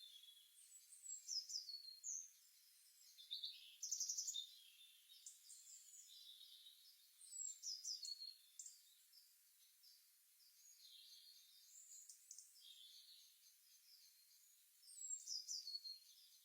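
Songbirds chirping and singing in bursts of quick, high descending notes, with softer calls in between. The loudest bursts come about a second in, around four seconds in, around eight seconds in, and near the end.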